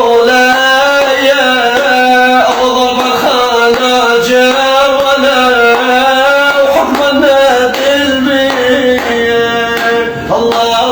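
A man singing an Arabic folk song in long, drawn-out phrases with wavering ornaments, with a short break near the end before the next phrase.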